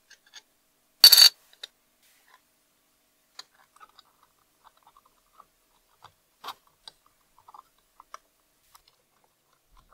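A glass lens set into a metal gauge bezel gives one short, sharp clink about a second in. Faint scattered clicks and taps of small metal parts being handled follow as the case is fitted onto the bezel.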